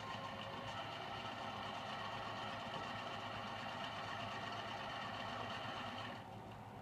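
Computer speakers giving out a steady, rough whirring noise with nothing playing, likened to a car engine trying to turn over or a sewing machine running: an unexplained speaker fault. The higher part of the noise drops away about six seconds in.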